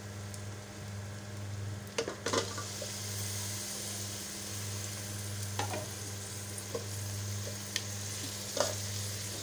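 Raw minced meat and bone pieces sizzling as they are added to hot oil and fried onions and stirred in. A metal spoon scrapes and knocks against the metal pot a few times, over a steady low hum.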